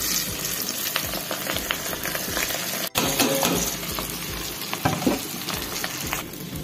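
Pre-soaked, fan-dried rice being poured into hot ghee in a steel pot, sizzling with a scatter of small crackles. There is a momentary dropout about three seconds in.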